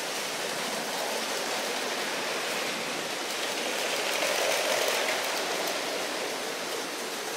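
Lego trains running on plastic track: a steady rushing whir of small motors and wheels, swelling for a moment about four seconds in as a train passes close.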